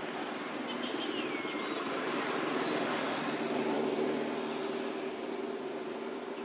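Engine and road noise of a passing motor vehicle, a steady hum that swells to its loudest about four seconds in and then slowly fades.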